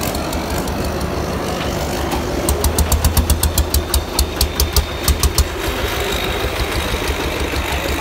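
Diesel engine of a painted farm truck running close by as the truck moves past, with a clattering knock at about four to five beats a second in the middle.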